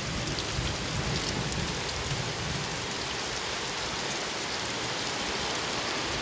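Heavy rain falling steadily: a dense, even hiss with scattered ticks of individual drops.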